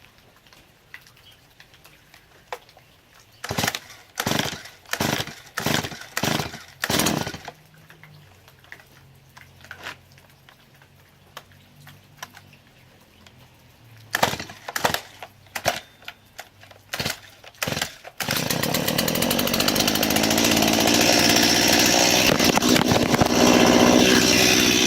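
Stihl MS 170 two-stroke chainsaw being pull-started: a quick series of about five recoil-starter pulls, then after a pause another series of pulls, and about 18 seconds in the engine catches and runs loudly.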